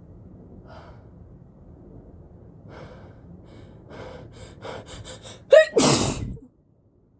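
A person with a cold working up to a sneeze: quick, catching breaths that come faster and faster, a rising "ah", then one loud sneeze about six seconds in that cuts off suddenly.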